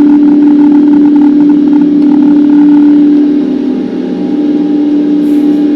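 Airbus A350's Rolls-Royce Trent XWB jet engines during takeoff, heard inside the cabin: a loud, steady drone with a strong low hum, easing a little about halfway through.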